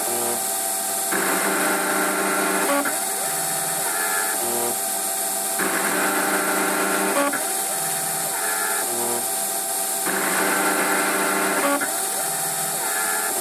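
Emco Compact 5 CNC lathe cutting a 1 mm pitch thread in aluminium at 450 rpm. The spindle runs steadily while the carriage's stepper-motor drives whine through repeated threading passes. Their pitch changes with each move, and the cycle repeats about every four and a half seconds.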